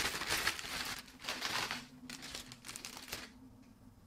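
Clear plastic zip-lock bag full of small paper mystery packets crinkling and rustling as it is handled, dying away after about three seconds.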